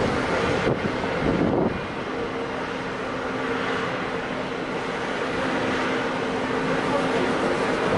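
Steady machinery hum under a rush of wind noise on the microphone. The noise is louder and rougher for the first couple of seconds, then settles.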